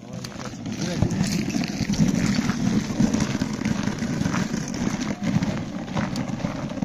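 Steady wind noise on the microphone, with gum boots and trekking poles crunching and tapping on the frozen river ice as trekkers walk.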